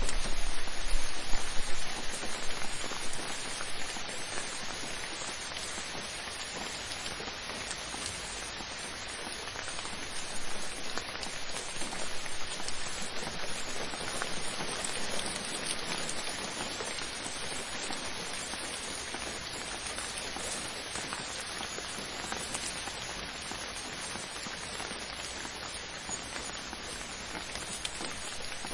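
Steady rain falling: a dense, even hiss of many drops with scattered individual drop ticks, a little louder in the first few seconds and then settling to a steady level.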